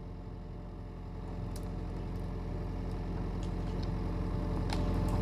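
Excavator's diesel engine running steadily, growing louder from about a second in as it comes under hydraulic load while the arm pushes. A few short, sharp cracks or clicks sound over it.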